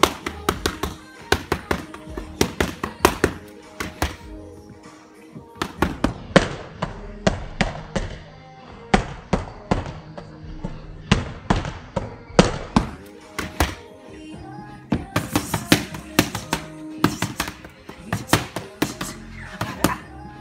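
Boxing gloves smacking focus mitts in rapid, irregular flurries of sharp slaps, over background music.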